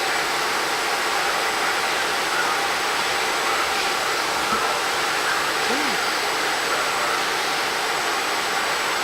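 Steady rushing noise, like air blowing, with a thin high steady whine above it.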